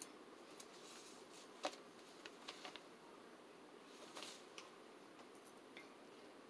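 Near silence: room tone with a scattered handful of faint, short clicks and light knocks, the sharpest about a second and a half in.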